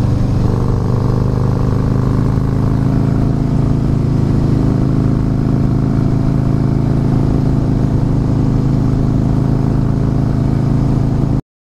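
Harley-Davidson Fat Boy S V-twin engine running steadily at an even cruising speed on the road, with no revving. The sound cuts off abruptly near the end.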